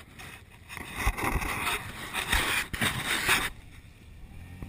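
An off-road vehicle (ATV or side-by-side) driving up and over a dirt-hill jump. It makes a loud, rough, noisy rush for about three seconds, with a couple of low thuds, then dies away near the end.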